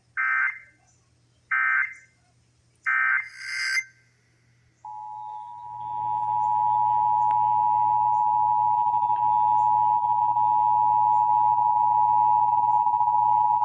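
Emergency Alert System data tones: three short end-of-message bursts about a second apart, then one more burst. About a second later the EAS two-tone attention signal (853 and 960 Hz) comes on and holds steady, rising in level over its first second or so.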